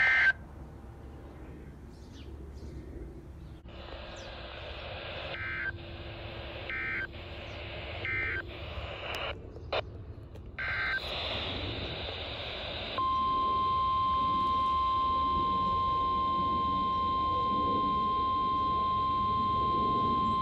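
Weather-radio hiss broken by several short two-tone digital data bursts, typical of Emergency Alert System SAME coding. About 13 seconds in, the steady single-pitch NOAA Weather Radio 1050 Hz warning alarm tone starts, sounding as in a weekly alarm test.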